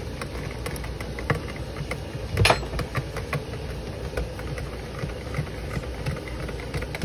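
Small wire whisk stirring cold-process soap batter in a plastic bowl, its wires clicking lightly and irregularly against the bowl, with one sharper knock about two and a half seconds in. A steady low machine hum runs underneath.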